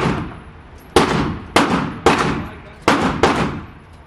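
Gunshots in an uneven string, about five shots, each a sharp crack that rings out over a fraction of a second before the next.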